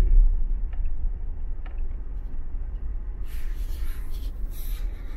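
Car driving, a steady low rumble of road noise, with some brief hissing from about three seconds in.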